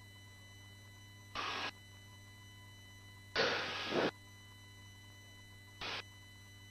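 Three short bursts of hiss, the longest and loudest about three and a half seconds in, over a steady low hum.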